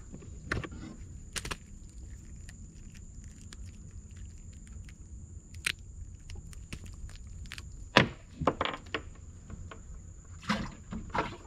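Scattered sharp clicks and knocks of a caught giant freshwater prawn being handled and snipped with pliers in a small boat, the loudest about eight seconds in, with a cluster near the end. A steady high insect drone and low rumble run underneath.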